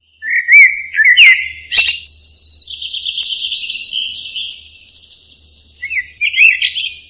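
Bird calls: short whistled chirps that rise and fall in pitch, then a long buzzy trill, with a few more whistled chirps near the end.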